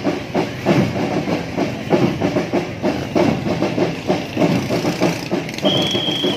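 Street parade noise: a steady rhythmic beating, several beats a second, with one long steady whistle blast near the end.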